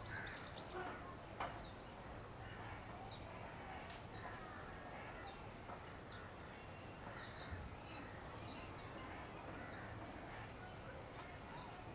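Garden ambience: a steady high-pitched insect drone with short, high bird chirps repeating about once a second, and one longer falling bird whistle near the end.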